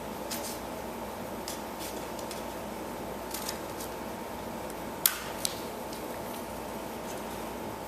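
Scissors cutting paper in a few separate snips, the loudest a sharp snip about five seconds in, over a steady background hum.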